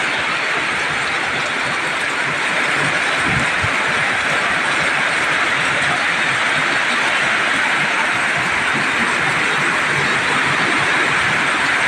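Heavy rain pouring down in a summer thunderstorm, a steady, even hiss. A brief low rumble comes about three and a half seconds in.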